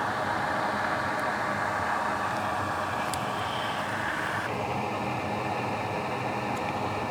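Steady whooshing fan or airflow noise from bench equipment, dropping slightly about four and a half seconds in, with a few faint ticks.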